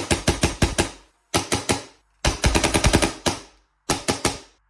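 A gas blowback Airsoft Masterpiece Hi-Capa 5.1 airsoft pistol fires in four quick strings of sharp, rapid clacks, its slide cycling with each shot. This is its first test on gas after assembly and greasing.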